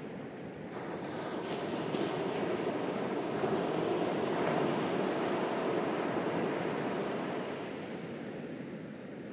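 Ocean surf: small waves breaking and washing up a sandy beach. The surf swells to its loudest about four seconds in as a wave breaks, then eases off near the end.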